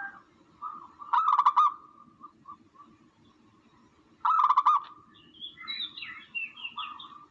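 Bird calls: two loud, rapidly pulsed calls about three seconds apart, then a run of quicker, higher chirps near the end, over a faint steady low hum.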